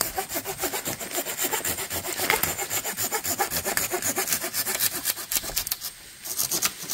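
Hand saw cutting through a sapling pole in rapid back-and-forth strokes, easing off about six seconds in with a few more strokes just before the end.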